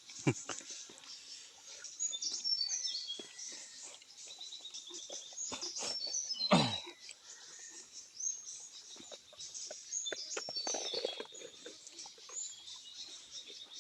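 Small birds chirping repeatedly in short, high, stepped notes. About six and a half seconds in comes one loud call that falls steeply in pitch.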